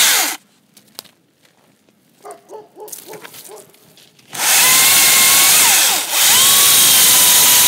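Makita cordless battery chainsaw: its electric motor whines at full speed briefly at the start and stops, then after a quiet gap of about four seconds spins up with a rising whine and runs loud and steady, dipping briefly once. It reads about 100 decibels on a meter at the saw.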